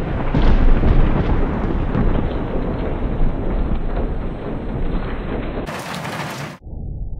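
Thunder rumbling loudly through a storm, heaviest about a second in. About six seconds in it cuts abruptly to a brief hiss, then to a duller, muffled rumble.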